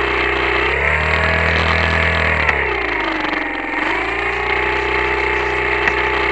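Electric RC-plane motor spinning an air propeller on a model trimaran, a pitched whine with its pitch moving with the throttle. It steps up about a second in, sags around halfway, and climbs back soon after.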